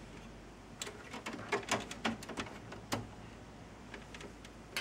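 A run of light, irregular clicks and taps from small metal and plastic parts, as the retention screw and front-panel USB and power-button board of a computer case are worked loose by hand. The clicks cluster about a second in and die away about two seconds later.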